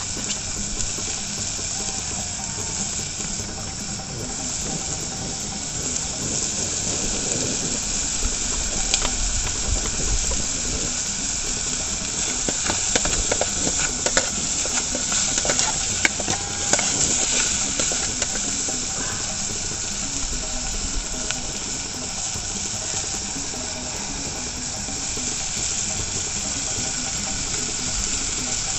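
A metal pot of freshwater snails in broth cooking over a wood fire, with a steady hiss. A spoon stirs the pot midway, giving a run of sharp clicks and knocks of shells and spoon against the pot.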